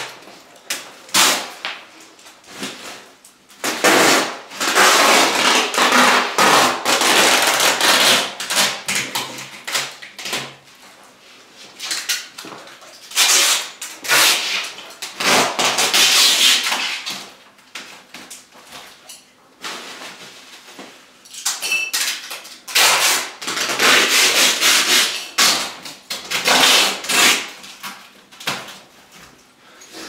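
Packing tape being pulled off its roll in long noisy pulls, three that last several seconds each, with shorter pulls and handling rustles between them.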